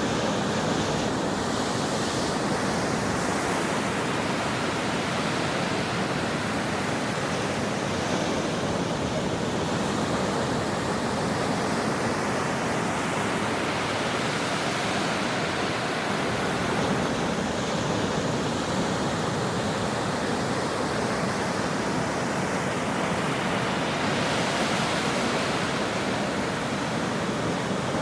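Ocean surf breaking on a shore: a continuous rush of water, with the hiss rising in a new wave every several seconds.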